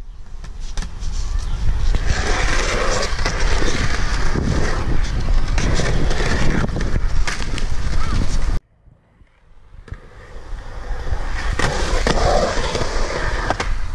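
Skateboard wheels rolling over a concrete skatepark, a steady gritty rumble. It cuts off abruptly about eight and a half seconds in, then builds back up over the next few seconds.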